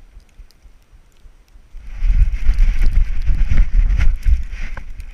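A GoPro strapped to a Labrador's flotation vest being jolted as the dog runs through snow: heavy, irregular thumps and rustling with its strides, starting about two seconds in after a quiet start.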